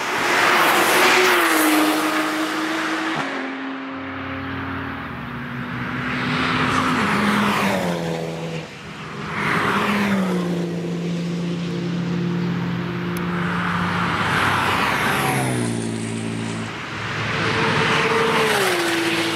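Cars driven hard on a race track, passing by one after another, about five in a row. Each engine note rises to a peak and drops in pitch as the car goes past.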